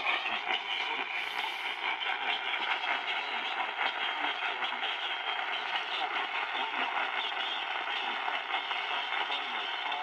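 Weak AM radio reception from the speaker of an Eton Traveller III portable radio: a steady band of static and hiss with faint, garbled broadcast voice under it.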